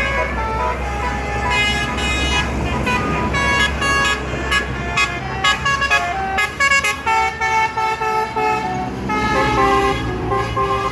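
Bus telolet musical air horns playing melodies of short notes that jump between pitches several times a second, over a low bus engine rumble.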